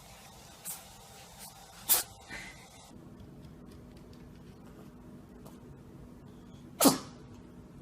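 A cat sneezing: a sharp sneeze about two seconds in with a smaller one just after, then after a cut another single sneeze near the end.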